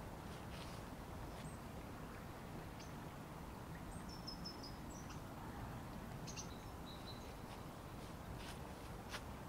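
Steady rush of a river swollen and overflowing after heavy rain, with a small bird chirping a few short notes about four and six seconds in, and a few faint clicks near the start and end.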